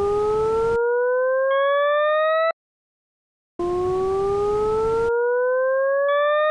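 Synthesized rising tone generated in the Desmos graphing calculator, a slow siren-like upward glide with several overtones, a hiss under its first half and higher tones joining shortly before it cuts off abruptly. After about a second of silence the same glide starts again.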